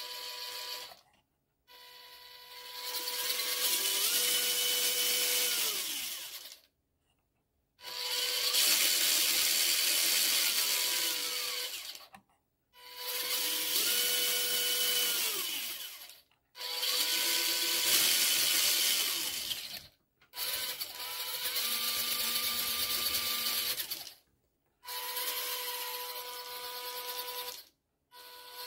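MN78 RC crawler's electric motor and gear drivetrain whirring as the wheels spin freely off the ground, in about six throttle bursts of a few seconds each with short silences between. Each burst rises in pitch, holds, then falls away, as the newly fitted ESC is run forward and in reverse.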